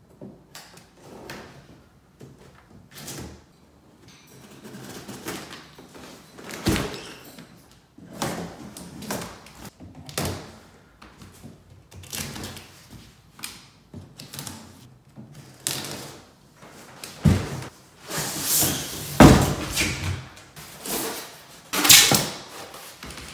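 A large cardboard shipping carton being opened by hand: packing tape being cut and pulled off, with cardboard scraping, rustling and knocking at irregular moments. The loudest rasps and thumps come in the last several seconds as the box is opened out and its contents handled.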